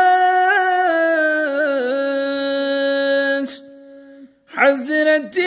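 Male voice singing a Kashmiri naat without instruments: it holds one long ornamented note for about three and a half seconds, breaks off for about a second, then starts the next line.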